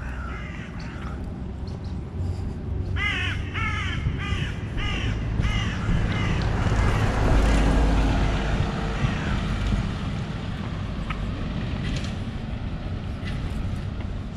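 A crow cawing: a couple of harsh caws near the start, then a run of about six at roughly two a second. After that a car passes along the road, building and fading, loudest about halfway through.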